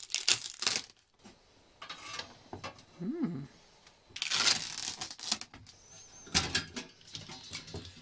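Old sticky tape being picked and peeled off a rusty perforated sheet-metal panel with a pocket knife, with clicks and light knocks as the metal plates are handled. A longer rasping noise comes about four seconds in.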